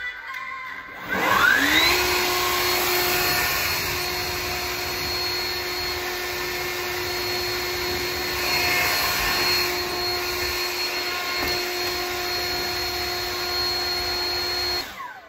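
Electric backpack leaf blower spinning up with a rising whine about a second in, then running steadily at full speed before cutting off near the end.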